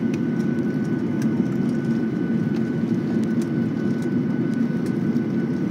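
Steady jet engine and airframe rumble heard inside an airliner's cabin as it taxis after landing, with a faint steady high whine over it and a few light rattles.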